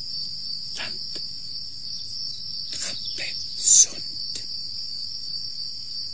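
Crickets chirring in a steady high trill as night ambience, with a few faint clicks and one brief, sharp burst of high hiss about three and a half seconds in.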